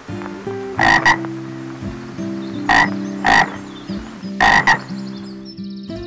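A frog croaking in short rasping calls: a quick pair about a second in, two single croaks around three seconds, and another pair about four and a half seconds in.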